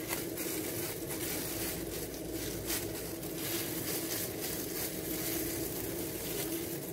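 Plastic-gloved hands rolling up dough spread with cinnamon-sugar filling on a countertop: soft crinkling of the gloves and faint scattered taps, over a steady hum from a room appliance.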